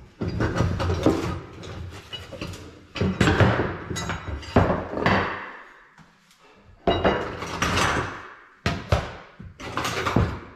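Loose screwdriver bits and hand tools clattering and knocking in a series of sudden bursts, as a box of bits is rummaged through.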